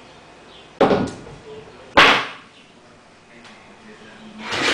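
A 25 lb iron weight plate being set down onto a hand truck's platform: two hard knocks about a second apart, the second the louder, followed by a softer clatter near the end.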